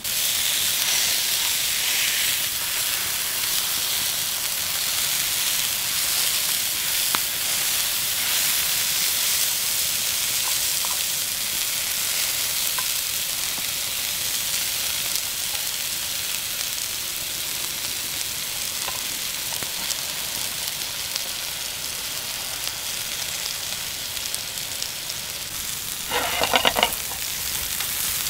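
Burger patties sizzling over an open campfire, a steady hiss with scattered small crackles. The fire is still too hot, not yet burned down to coals, so the burgers keep flaring up and burning. A short louder burst comes near the end.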